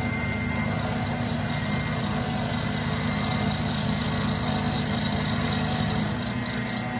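Small combination lathe-mill running steadily, its spindle turning an end mill as the table is fed across for a light climb-milling pass on a metal part held in the vise. A faint higher whine joins the hum through the middle of the pass.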